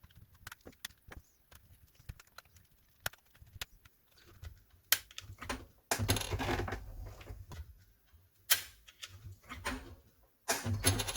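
A PlayStation 5 DualSense controller being handled and taken apart: light, irregular plastic clicks and ticks from a loose piece rattling inside the shell, then louder sharp plastic clicks and scraping as the casing is worked on.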